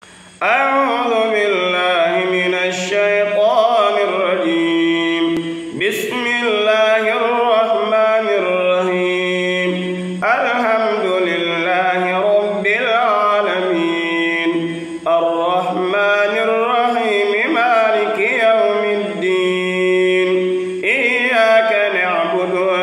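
A man's solo voice reciting the Qur'an in Arabic in a melodic chanted style (tajweed), holding long notes and gliding between pitches. The phrases are separated by short pauses for breath, and the voice begins about half a second in.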